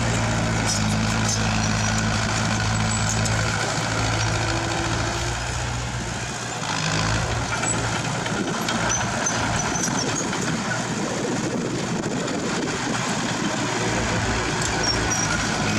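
Heavy diesel engine of earthmoving machinery running, with a steady low hum for the first six seconds, then a brief dip and a rougher, noisier sound.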